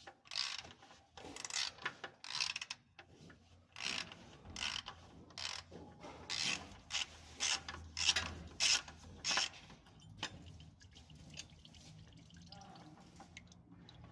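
Ratchet wrench clicking in short, irregular strokes while a fastener is worked during an oil filter change. The strokes stop about ten seconds in, leaving fainter handling noise.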